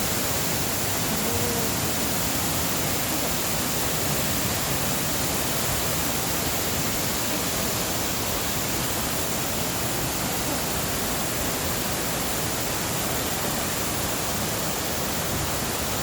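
Steady, unbroken rushing of the Nabegataki waterfall's falling water, an even hiss without let-up.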